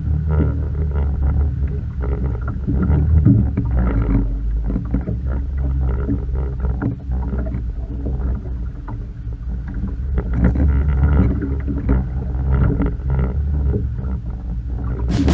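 A boat's motor running steadily, a continuous low rumble.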